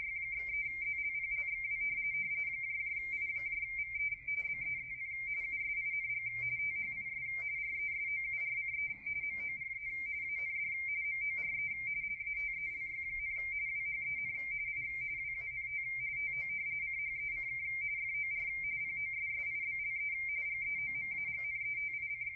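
Radioteletype (RTTY) signal from ARRL station W1AW, heard through a Yaesu FTdx10 transceiver on the 80-meter band. It is a steady, rapid warble between two close high tones, frequency-shift-keyed Baudot carrying a text bulletin that the radio is decoding.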